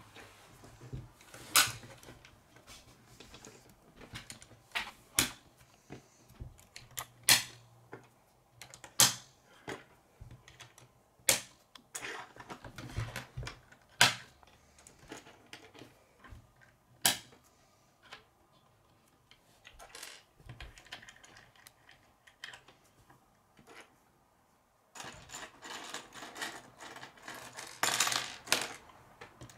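Plastic K'nex rods and connectors clicking as they are snapped together and set down on a wooden table: scattered sharp clicks at irregular intervals, with a busier patch of clicking and handling noise near the end.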